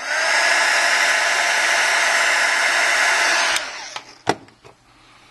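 Heat gun blowing hot air steadily for about three and a half seconds, then switched off, softening the adhesive under an iPhone 5's home-button bracket. A single sharp click follows about a second later.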